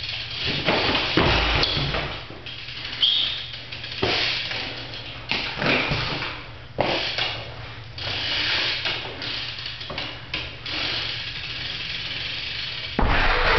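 BMX bike knocking and clanking on a concrete garage floor during tailwhip attempts: sharp knocks of the tyres and frame landing every second or so, with tyre scuffs and rattling between them. A faint steady hum runs underneath.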